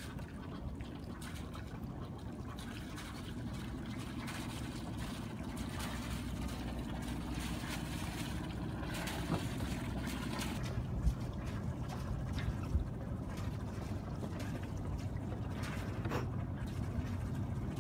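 Alberg 30 sailboat's inboard engine running at low revs, a steady low hum, with the splash of its wet exhaust; a few light knocks sound over it.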